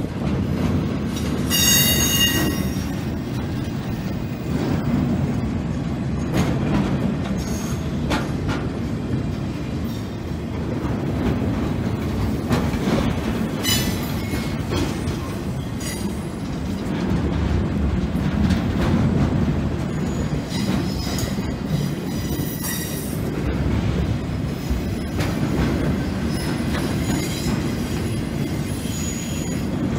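A long string of empty railroad flatcars rolling past: a steady rumble and clatter of steel wheels on the rails, with brief high-pitched wheel squeals about two seconds in and a few more in the last third.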